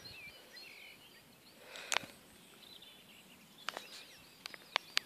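Small birds chirping and singing, with a few sharp clicks: one about two seconds in and a quick cluster near the end.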